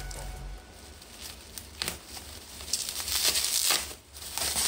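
Plastic bubble wrap crinkling as it is cut with a utility knife and pulled open by hand: faint rustles and a few clicks at first, then loud crinkling for about a second from around the three-second mark.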